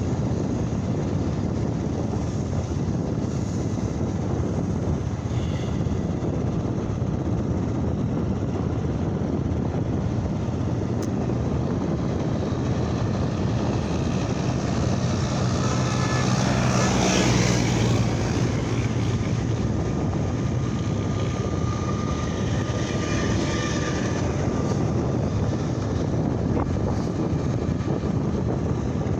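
Steady motorcycle engine and wind noise while riding along a highway. About halfway through, an oncoming vehicle passes close by and the noise swells briefly before settling back.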